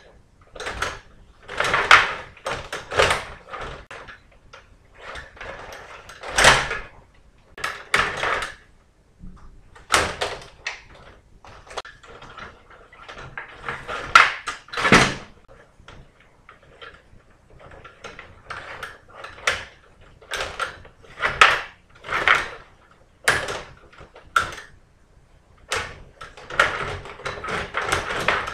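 Stiga table hockey game in play: metal control rods sliding and rattling in the table, with plastic players knocking the puck and clattering against the boards. Short bursts of clicks and knocks come irregularly, every second or two.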